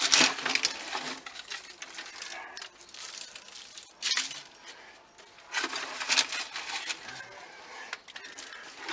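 Dry, stony soil being tipped into a plastic pot: gritty pattering and rattling of earth and small stones in a few short bursts, at the start, about four seconds in and around six seconds in.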